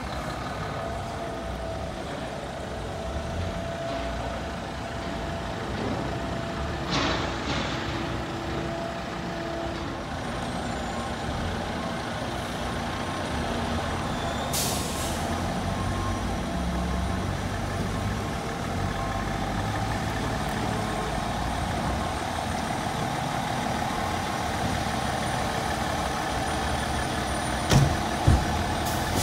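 A 2015 KME fire engine pumper's diesel engine running steadily in the firehouse bay, then pulling out near the end. Air brakes hiss about 7 and 15 seconds in, and two sharp knocks come shortly before the end.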